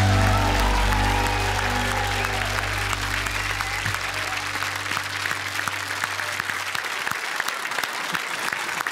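Studio audience applauding while the band's final held chord rings out and fades away over the first half.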